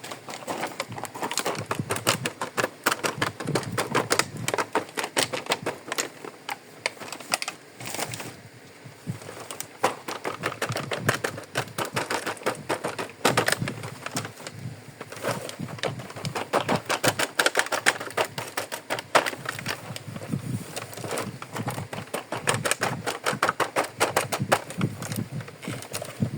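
Small plastic toy kitchen pieces being handled, a dense, irregular run of light clicks and taps.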